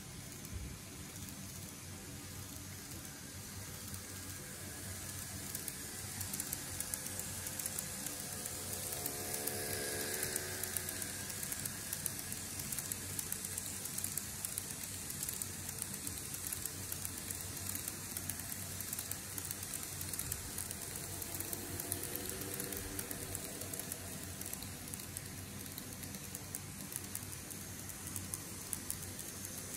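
TOMIX N-gauge E231-series model trains running past on track: steady wheel-on-rail rolling noise with rapid fine clicking, and a faint motor whine. It swells about ten seconds in, and the whine returns after twenty seconds as a second train passes.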